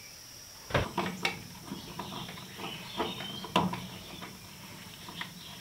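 Sharp plastic clicks and knocks of a plug-in outlet tester being pushed into and pulled out of a wall receptacle, a handful of clicks spread over a few seconds, the loudest about a second in and again past three and a half seconds.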